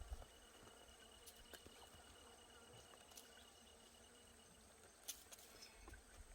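Near silence with a faint steady insect call: a thin high tone that stops about four and a half seconds in, with a few soft clicks.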